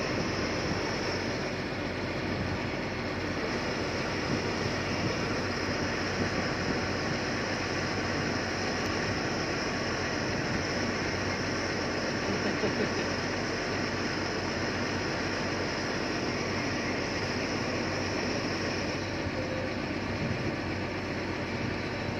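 Hyundai 245 excavator running at work, its diesel engine giving a steady drone with no breaks.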